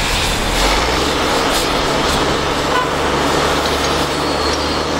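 Heavy diesel equipment running steadily under a loud, even rushing noise. A low engine hum steps up about a second in.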